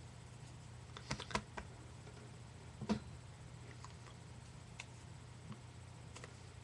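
A few sharp taps and clicks from hands knocking together while signing: a quick cluster about a second in and a single louder tap near the three-second mark, with fainter ones later, over a steady low electrical hum.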